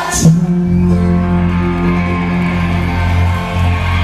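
Live rock band with electric guitar and bass playing through a PA: a sharp crash just after the start, then a held guitar-and-bass chord.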